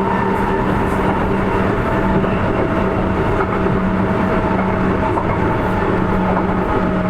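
Sotetsu 8000 series electric train running at a steady pace: an even rumble with a few steady tones, and occasional faint clicks of the wheels over the rails.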